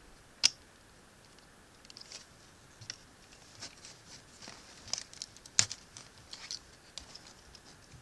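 Hard plastic action-figure parts being handled and fitted on: scattered light clicks and scratchy rustles, with two sharp snaps, one about half a second in and a louder one just past the middle.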